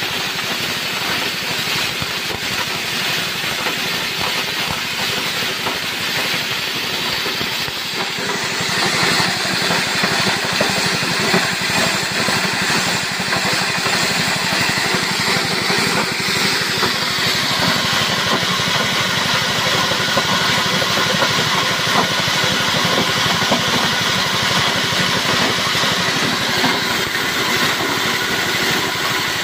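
Small stationary engine running a belt-driven chopper machine, its blades grinding dry shredded material fed from the hopper in a steady, harsh mechanical noise. It gets louder and harsher about eight seconds in.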